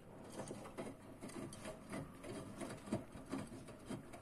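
A 1600-rpm front-loading washing machine running its wash: the drum turning with laundry and water sloshing inside, and irregular soft clicks and knocks several times a second.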